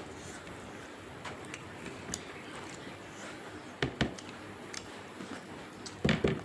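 Close-up eating sounds: chewing with small wet mouth clicks and smacks. Two louder short bursts of quick noises come about four seconds in and near the end.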